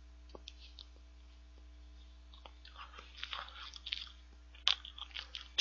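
Soft, quiet mouth sounds of chewing a bite of cheesecake, with a few faint clicks and one sharper click near the end.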